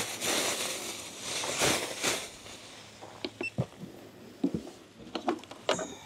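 Camping gear being handled: a rustling for the first two seconds or so, then scattered light knocks and clicks.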